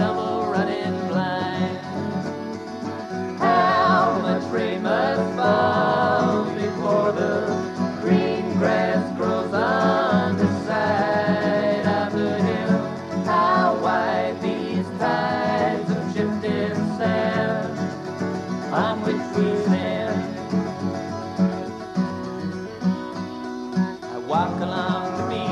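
Instrumental break in an acoustic folk song: acoustic guitars playing, with a melodic lead line gliding over the steady accompaniment.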